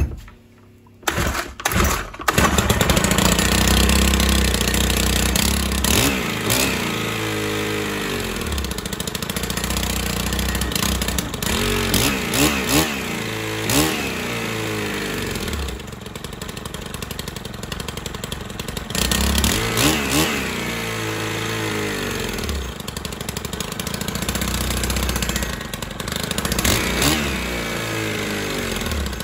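STIHL FS 130 brushcutter's 4-MIX four-stroke engine, freshly reassembled, started cold on the choke: it catches about two seconds in and runs. The throttle is blipped again and again, the engine note rising and falling between stretches of idle.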